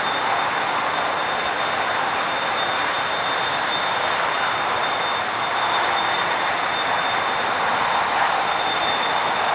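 Steady rush of freeway traffic: tyres and engines of passing cars and a semi-trailer truck, with a thin steady high tone running under it.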